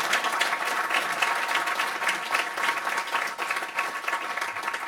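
Audience applauding, with many people clapping together.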